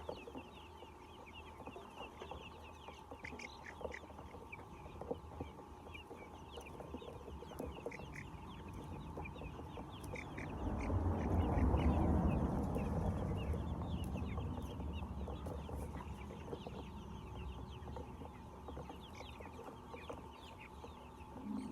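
A flock of laying hens clucking and chirping together in a continuous chatter. A low rumble swells about ten seconds in and fades over the next few seconds.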